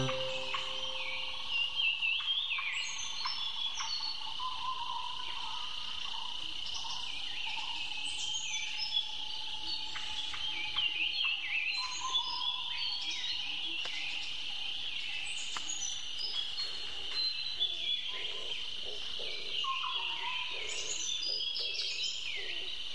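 Birds chirping in short falling calls every second or two, with a few whistled notes, over a steady high insect drone.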